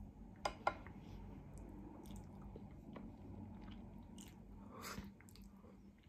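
Faint close-up eating sounds: chewing and slurping rice noodles in spicy tteokbokki sauce, with two sharp mouth clicks about half a second in and softer wet ticks after.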